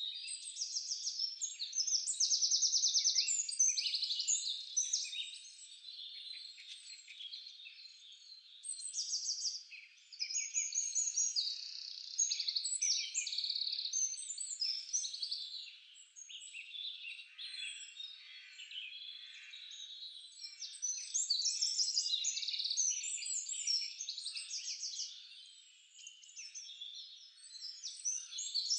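A chorus of many songbirds singing and chirping over one another, full of high chirps and fast trills. It swells and fades in waves.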